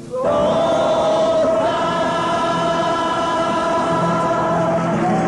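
A tuna's massed voices singing one long held chord, entering with a short upward slide and sustained steadily, over the group's guitars and bandurrias.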